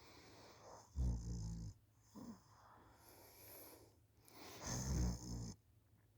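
A person asleep on a couch snoring: two loud, low snores, each lasting under a second, about three and a half seconds apart, with a short, fainter breath after the first.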